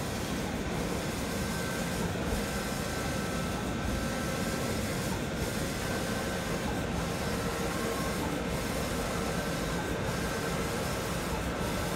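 Stormjet SJ-3180TS wide-format printer running while printing: a steady mechanical whir with a few faint steady tones, the high hiss dipping briefly about every second and a half.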